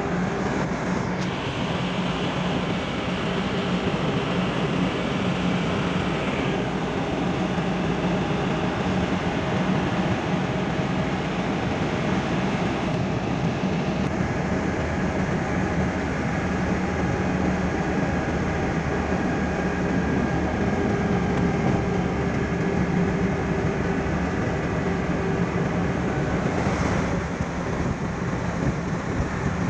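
Car cabin noise at highway speed: a steady engine drone under an even rush of tyre and road noise. A brief louder rush of noise comes near the end.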